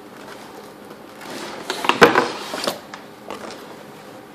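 Box packaging being handled: a rustle building about a second in, then a sharp knock about two seconds in and a couple of lighter clicks after it.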